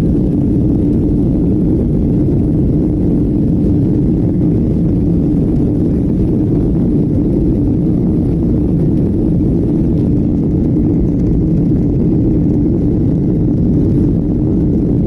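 Airplane cabin noise in flight: a steady, loud low roar of engines and airflow that stays even throughout.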